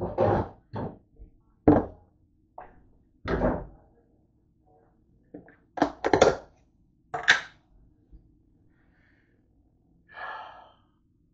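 A string of knocks and thunks from things being handled and set down on a kitchen counter. Among them, a plastic margarine tub is put down about six seconds in, and a softer, longer rustle comes near the end.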